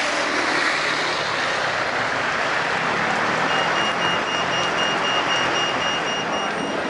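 Heavy rain falling on a busy street, with traffic tyres hissing on the wet road: a loud, steady wash of noise. A faint, high, rapidly pulsing beep joins about halfway through.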